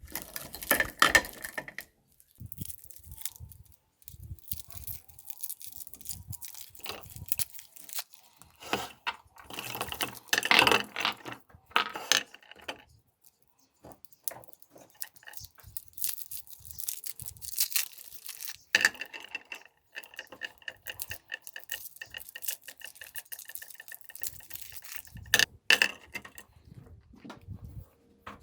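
Clinking, clattering and rustling handling sounds. Several seconds of steady, rapidly pulsing high-pitched whirring come about two-thirds of the way in.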